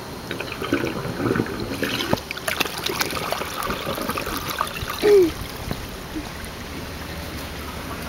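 Flush water from a homemade septic tank bubbling and gurgling out of a buried PVC drain pipe into a water-filled pit; the water settles after about five seconds. A short, loud falling squeak-like note sounds about five seconds in.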